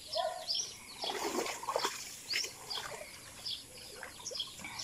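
Shallow muddy pond water splashing and trickling in irregular bursts as hands grope through it, with small birds chirping repeatedly in the background.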